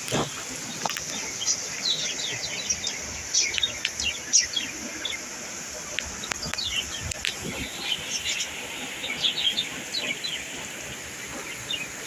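Small birds chirping again and again in quick, high, falling notes, over a steady hiss of rain.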